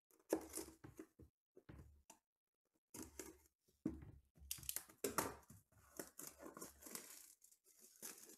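Plastic shrink-wrap being slit and torn off a sealed box of trading cards, with irregular crinkling and tearing and a short pause about two seconds in.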